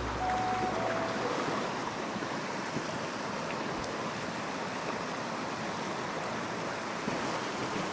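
A small mountain stream running over rocks and little cascades: a steady, even rush of water.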